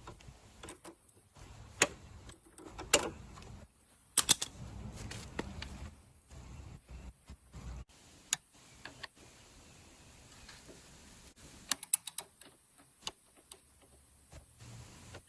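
Hand tools and metal parts clicking and knocking irregularly during work on a motorcycle muffler, with a few sharper clinks about 2, 3 and 4 seconds in and a cluster near 12 seconds.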